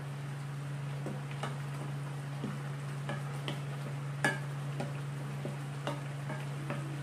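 Wooden spoon stirring chunky vegetables and squid in a coconut-milk sauce in a metal pan, with scattered light knocks of the spoon against the pan, the loudest about four seconds in. A steady low hum runs underneath.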